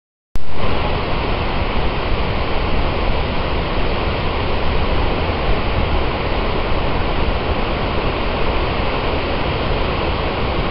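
Steady rush of the Upper Falls of the Genesee River, a large waterfall, cutting in abruptly a moment in after silence.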